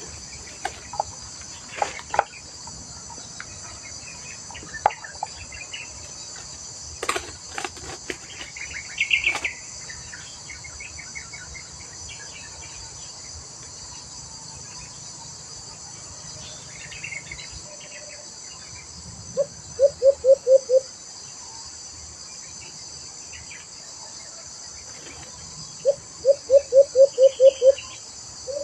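A steady high insect chorus, with a few sharp clicks and short chirps early on. Twice in the second half, a dove (alimokon) gives a run of quick, evenly spaced low hooting notes: about five the first time and about eight the second, and these are the loudest sounds.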